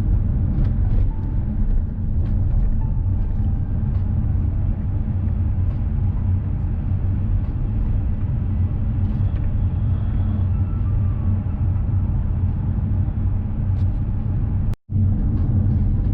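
Steady low rumble with a brief dropout near the end.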